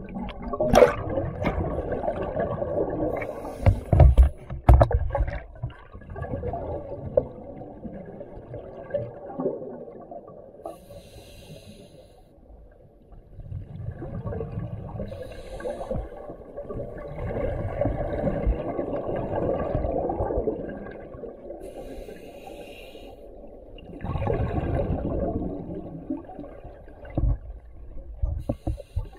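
Diver breathing underwater through a scuba regulator: short hisses on the inhale and long rushes of exhaled bubbles, with a few sharp knocks about four seconds in.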